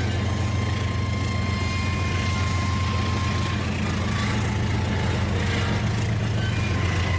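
Rail King battery-powered toy train running on its track: a steady motor hum, with faint high tones coming and going over it.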